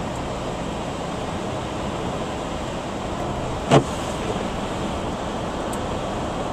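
Steady rushing noise of a car driving, with one sharp click a little under four seconds in.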